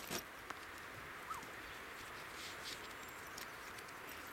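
Quiet woodland background with a sharp click at the start, a few fainter clicks and rustles, and one short, faint bird note about a second in.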